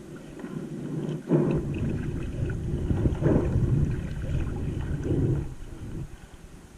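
Wind rumbling on the microphone with water sloshing around a kayak on the sea. It swells about a second in and fades again near the end.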